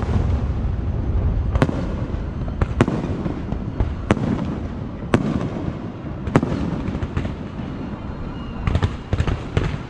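Aerial firework shells bursting overhead, a sharp bang roughly every second over a continuous low rumble. Near the end comes a quick run of crackling pops.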